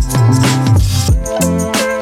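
Background music with a steady beat: kick drum, bass notes and a pitched melody, in a hip-hop style.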